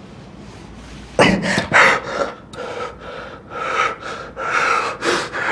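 A young man breathing hard in strained gasps and snatched breaths, straining with effort as he tries to step unaided; the breathing starts about a second in.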